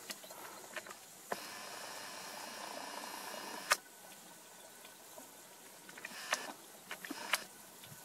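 Camera zoom lens motor whirring steadily for about two and a half seconds as the lens zooms in, stopping with a sharp click. A few light clicks of the camera being handled come before and after it.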